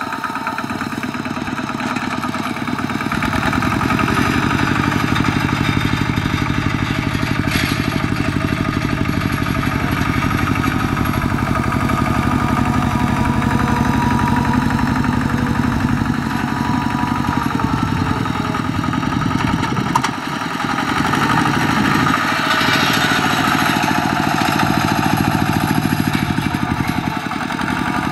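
Two-wheel walking tractor's single-cylinder diesel engine running steadily with a fast, even chugging. It gets louder about three seconds in and dips briefly around twenty seconds.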